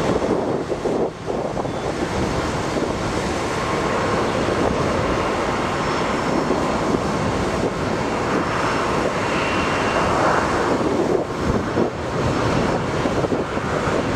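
Jet engine noise from a Boeing 737-900 climbing out after takeoff: its two CFM56-7B turbofans at takeoff thrust, a steady, rushing noise.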